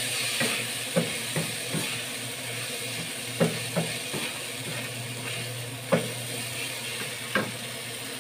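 Sliced chilies, garlic and ginger sizzling in oil in a non-stick frying pan while a wooden spatula stirs them, with a scatter of sharp knocks as the spatula strikes the pan.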